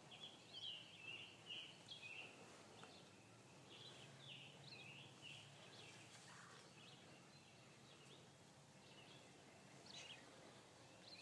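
Faint songbird chirps and short twittering calls, repeated on and off, over a quiet outdoor hush.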